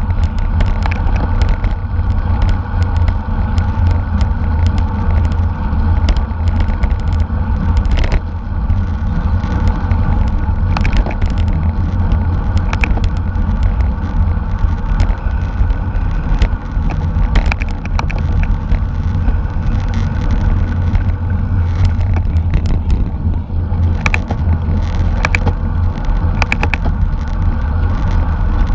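Wind buffeting a microphone on a moving bicycle in a race: a loud, steady low rumble, with scattered clicks and rattles over it.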